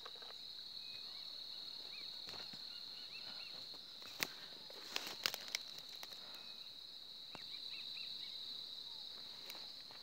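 Faint outdoor ambience: insects buzzing in one steady high drone, with short bird chirps now and then. A few sharp clicks or snaps come about four to five seconds in.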